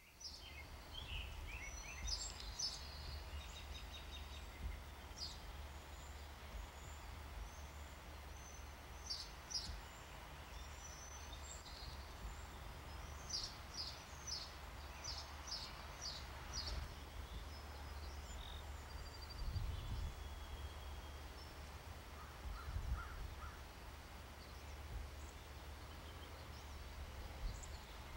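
Songbirds chirping in short high calls, with a quick run of chirps in the middle, over a steady low rumble of outdoor background noise.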